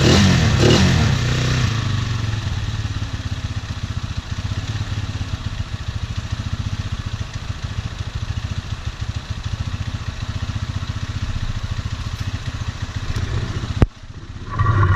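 A Tornado 250cc Chinese ATV's engine is briefly revved, then settles into a steady idle with a fast, even pulse. This is just after a hard start, which needs a little throttle for a few seconds to keep it running. Near the end a sharp click comes, and the engine sound drops away suddenly.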